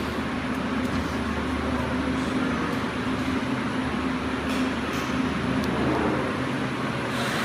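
Electric meat grinder's motor running steadily with an even hum, grinding pork.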